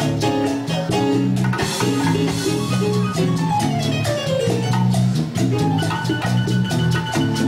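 Salsa band playing an instrumental passage: a repeating bass line under evenly spaced percussion hits and melodic lines, with no singing.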